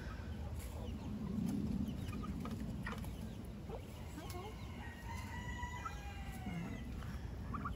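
A rooster crows once, a long call starting about five seconds in, with chickens clucking and short chirps around it.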